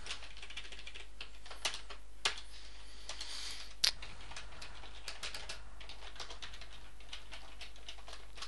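Typing on a computer keyboard: a steady run of quick key clicks with a few louder keystrokes, over a low steady hum.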